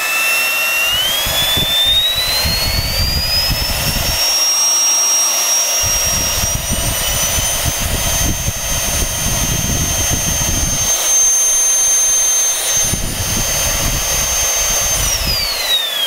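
Bare brushed vacuum cleaner motor run up on a variac: a high whine rises over the first few seconds as it speeds up, then holds steady and noisy at full speed. Near the end it winds down with a falling whine.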